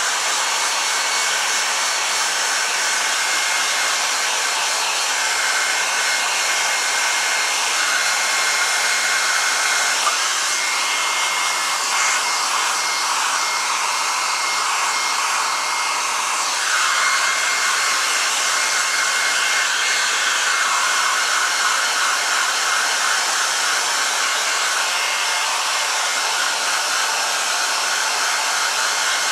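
A small handheld electric hair dryer running steadily, blow-drying the fur of a squirrel mount. Its rushing tone shifts a couple of times as it is moved about.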